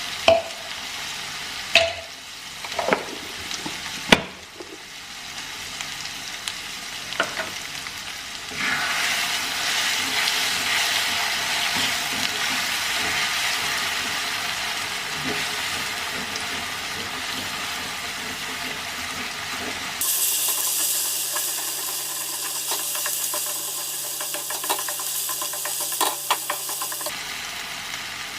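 Spice paste frying in oil in a pan, sizzling steadily while a spatula stirs it, with a few sharp knocks of the spatula against the pan in the first few seconds. The sizzling grows louder about nine seconds in.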